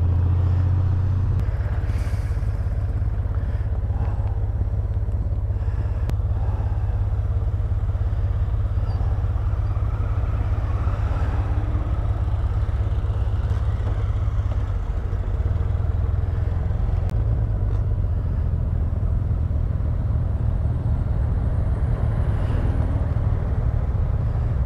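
Honda Gold Wing motorcycle engine running steadily under way, with a low, even rumble of engine, wind and road noise.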